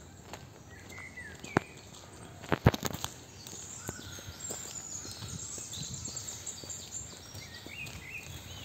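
Woodland birds singing, short chirps and trills, over the crunch of footsteps on a gravel path. Two sharp knocks stand out, about one and a half and two and a half seconds in.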